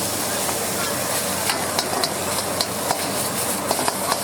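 Wok stir-frying: food sizzling in hot oil, with a steady hiss and irregular sharp clicks and scrapes of a metal spatula against the wok.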